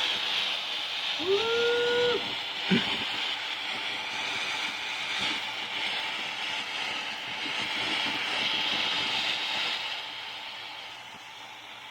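Ground fountain firework hissing steadily as it sprays sparks, with a single sharp pop about three seconds in; the hiss dies down near the end.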